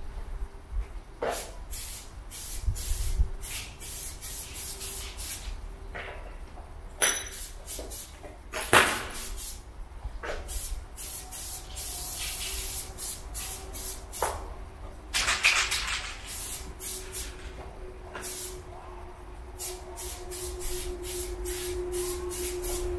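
Aerosol spray paint can hissing in many short bursts, with a few longer sprays near the middle, as green paint goes onto a concrete wall. A faint steady hum runs underneath, growing a little stronger near the end.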